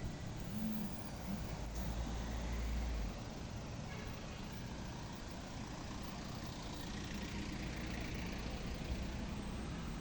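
City street traffic: vehicle engines running, with a heavier low rumble for the first three seconds that drops off suddenly, then a steadier traffic hum.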